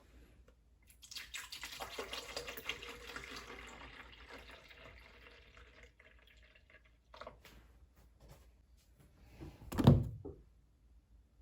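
Water running for a few seconds, as from a tap, tapering off, followed by a single thump near the end.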